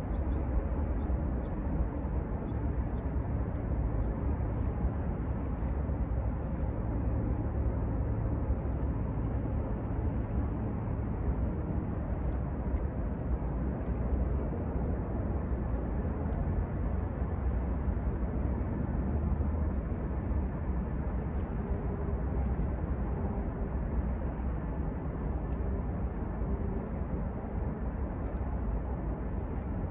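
Steady low rumble of a distant Norfolk Southern freight train rolling across the river, with no distinct horn or squeal.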